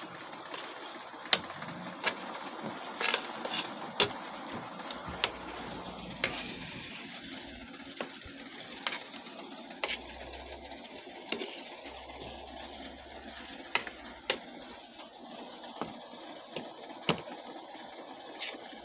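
Spoons and forks clinking and scraping on ceramic plates while people eat, about a dozen and a half irregular sharp clinks over a steady background hiss.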